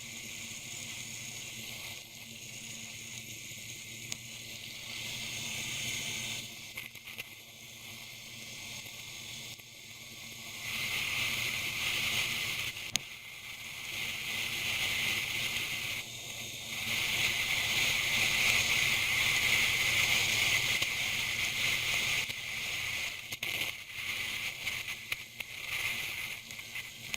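Motorcycle riding through rain on a wet road: a steady hiss of rain, wind and tyre spray, swelling louder twice, over a faint steady hum from the Bajaj Pulsar NS200's single-cylinder engine.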